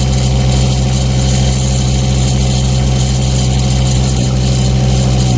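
An engine running steadily at idle, its pitch dropping slightly right at the end.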